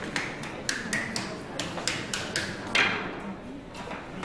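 A wooden paddle knocking against clay on a wooden board: a run of sharp, irregular taps, about two a second, with the loudest near three seconds in.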